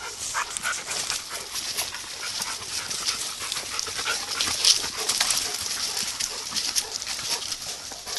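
Footsteps and rustling of a child and dogs moving through leaf litter and undergrowth on a woodland path: a dense crackle of many small crunches, with one sharper crunch near the middle.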